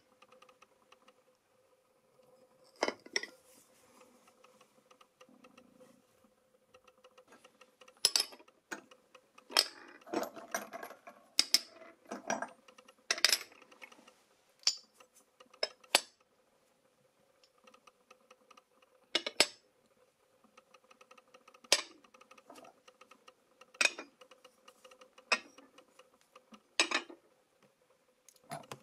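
Cast copper and brass coins and bars clinking as they are handled and set down: about eighteen sharp metallic clicks at irregular intervals, bunched around the middle, over a faint steady hum.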